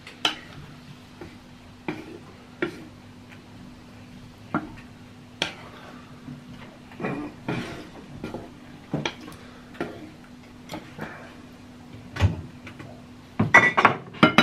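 A spoon stirring liquid in a pot, knocking and clinking against the pot roughly once a second, with a quick run of louder clinks near the end. A steady low hum runs underneath.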